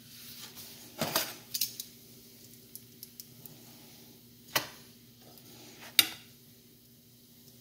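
Metal tongs clacking and scraping against a nonstick frying pan as a flatbread is lifted, turned and laid back down: a few sharp clacks, the loudest about six seconds in. A faint sizzle of the bread in hot oil runs underneath.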